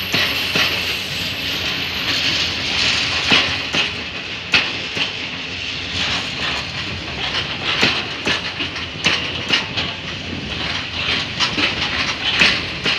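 Freight train of open box wagons rolling past on the rails: a steady metallic hiss of wheels on rail, with irregular clicks and clacks as the wheels cross rail joints.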